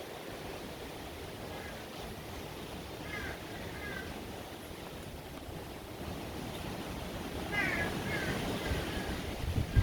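Steady rush of wind and surf ahead of a typhoon, with a few short high calls from an animal in small groups of two or three, about three seconds in and again near the end.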